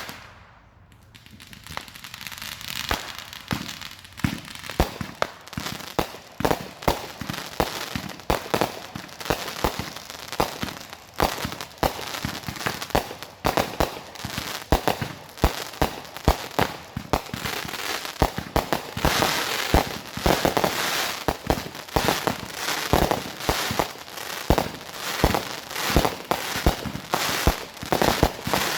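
Fireworks finale: a rapid, continuous barrage of bangs and crackling that builds up over the first couple of seconds and then keeps going densely.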